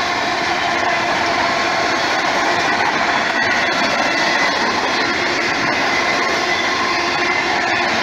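Autorack freight cars rolling past at speed: a steady, loud noise of steel wheels on the rails.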